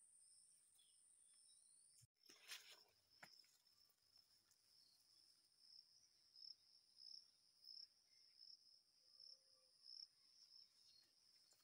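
Faint insect chorus: a steady, high-pitched trill that pulses evenly throughout. About two seconds in, the sound drops out for an instant, followed by a brief rustle.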